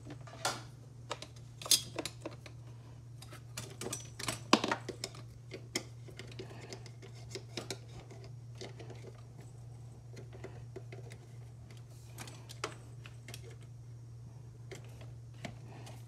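Microwave oven running: a steady low hum with many irregular sharp clicks and clatters.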